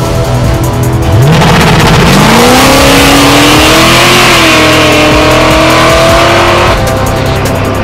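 Car engine revving up hard, its pitch climbing quickly and then held high for about five seconds under a loud rush of exhaust and tyre noise, then cutting off suddenly near the end.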